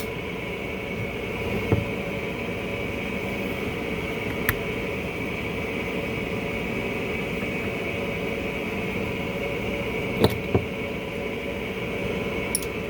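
Steady fan hum with a few light, sharp clicks as small metal carburetor parts and tools are handled.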